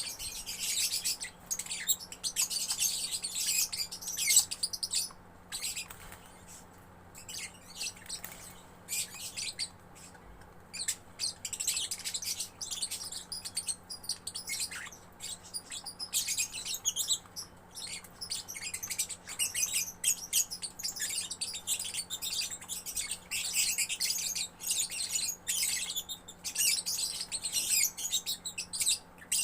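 Young lovebird chattering in long runs of rapid, high chirps, breaking off briefly a few times.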